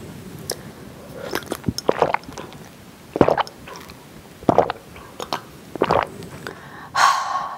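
Close-miked drinking from a glass mug: a person sipping and swallowing in separate gulps about a second apart, with a louder rushing sound near the end.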